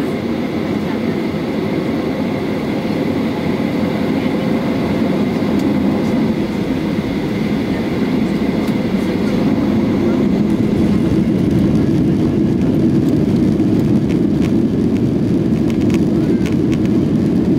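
Steady rumble of a Boeing 737-800 heard from inside the cabin, growing gradually louder. Light rattles come in from about ten seconds in.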